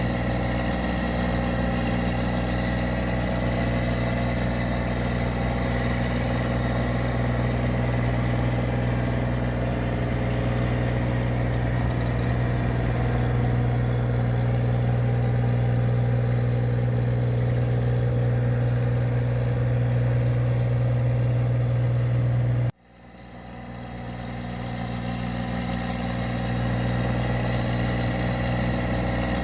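Engine of a paddy (rice) machine running steadily at constant speed with a strong low hum. About three-quarters of the way through, the sound cuts out abruptly and fades back in over a couple of seconds to the same steady running.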